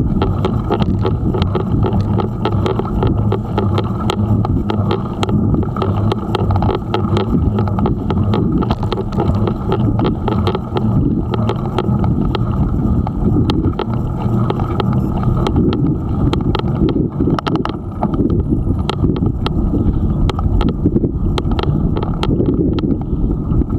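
Steady, muffled wind and road noise on a bike-mounted camera while riding along an asphalt lane: wind buffeting the microphone over the rumble of the tyres, with frequent small clicks and rattles from the bike going over the rough surface.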